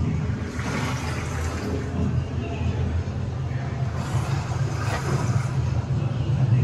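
Steady low hum, with indistinct voices of people in the background.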